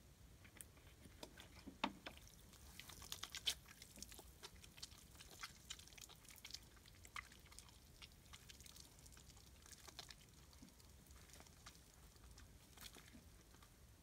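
Near silence with faint, scattered clicks and crackles, busiest a couple of seconds in, from hands handling the plastic bottle and fittings of a homemade water dispenser over a wooden sink.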